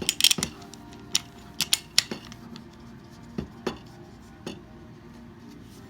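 Beretta pistol with a mounted weapon light being worked into a SureFire Masterfire holster: a quick run of sharp plastic-and-metal clicks and knocks, then a few scattered clicks.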